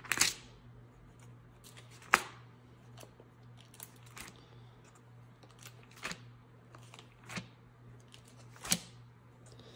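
Thin Bible-paper pages being turned by hand, one at a time: a series of crisp page flicks, the loudest about two seconds in and near the end.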